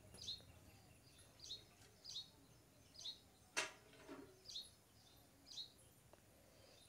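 Faint background chirping of a small bird, short falling chirps repeating every half second to a second over a low steady hum, with one louder sharp click about halfway through.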